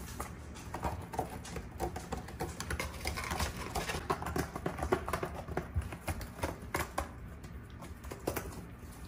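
Kittens' claws scratching and picking at a corrugated cardboard scratcher: quick, irregular little scratches and clicks.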